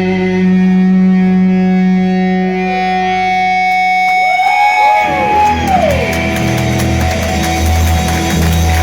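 Live rock band playing with electric guitar: a held chord rings for the first few seconds, notes bend up and down in pitch about halfway through, then a steady pulsing bass rhythm takes over.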